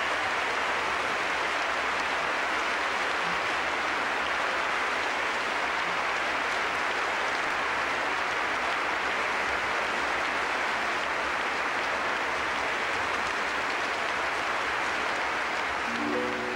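Large concert-hall audience applauding steadily and densely. Near the end, instruments begin playing again.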